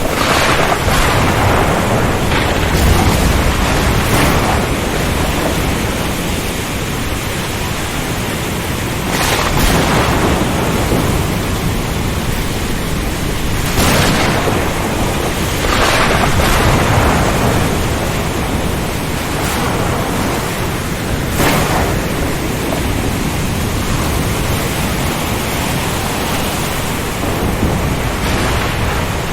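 Storm at sea: a loud, steady rush of wind, rain and surf with a low rumble, broken every few seconds by sudden sharp cracks of thunder.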